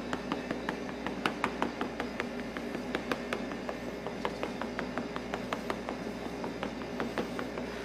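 Knife tip pricking (docking) a puff-pastry shell in a fluted metal tart pan: quick irregular taps, several a second, as the point goes through the dough and strikes the pan.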